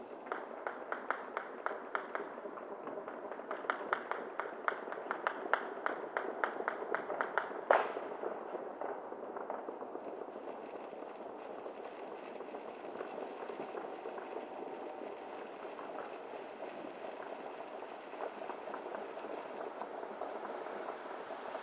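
A string of distant firecrackers popping rapidly and irregularly, several pops a second, with one louder bang near the eight-second mark, followed by fainter scattered crackling of New Year's fireworks.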